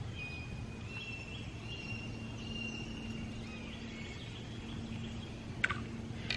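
Quiet outdoor ambience: faint thin whistled notes that step up and down in pitch, like distant birdsong, over a low steady hum, with two short clicks near the end.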